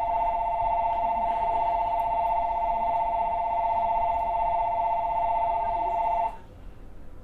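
Electronic station departure bell ringing: a fast, trilling two-tone ring that cuts off suddenly about six seconds in, signalling the train is about to leave.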